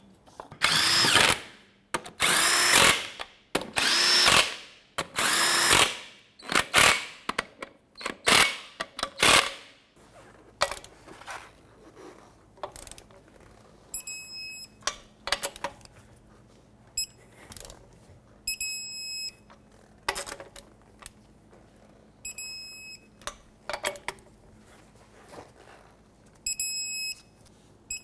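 A power tool spins lug nuts down in a run of short bursts during the first ten seconds or so. After that a torque wrench clicks on the nuts, and a high electronic beep sounds each time a nut reaches its set torque of 140 ft-lb, about eight times in all.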